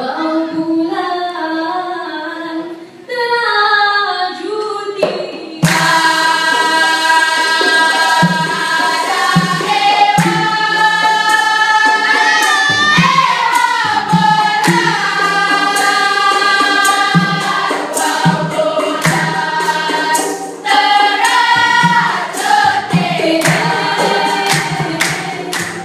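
Singing through a microphone: one female voice alone at first, then about six seconds in a louder, fuller sound of several voices with a steady beat of sharp taps joins in.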